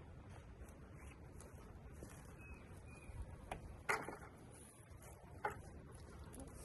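Wind rumbling on the microphone, with two short knocks about four and five and a half seconds in.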